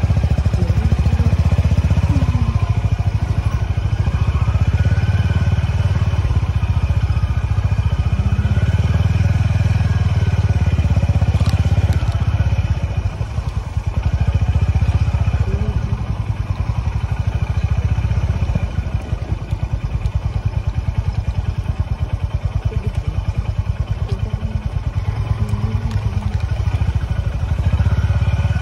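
Honda H'ness CB350's air-cooled single-cylinder engine thumping along at low speed on a rough dirt trail. The throttle eases off briefly about halfway through, then the engine picks up again, rising and falling as it goes.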